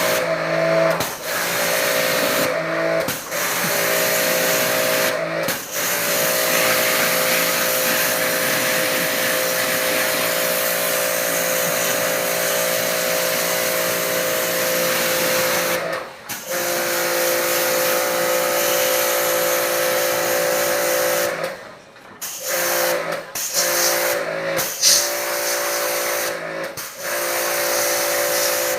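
Electric pressure washer running, a steady motor whine under a spray hiss, cutting out briefly several times, most clearly about 16 and 22 seconds in.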